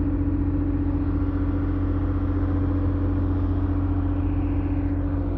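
Steady machine running with an even, constant hum and a rumble beneath it, the pitch stepping up slightly near the end.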